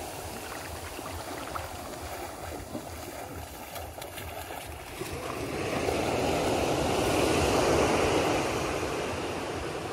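Gentle surf washing onto a sandy beach: a steady wash of small waves, with one wave swelling up about halfway through and fading away near the end.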